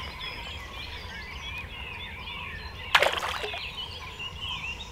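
Songbirds singing in a dawn chorus, many overlapping whistled phrases. About three seconds in there is a single sudden loud noise, brief and rushing.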